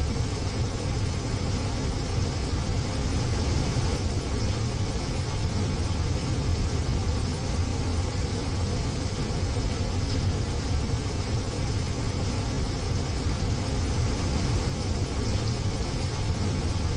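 Heavy rain falling steadily on a window, an even hiss over a steady low rumble.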